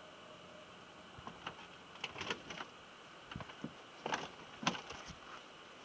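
Plastic water canisters knocking and scraping against each other and the floor as they are shifted about inside a minivan: a scatter of light knocks and clatters, busiest about two seconds in and again around four to five seconds in.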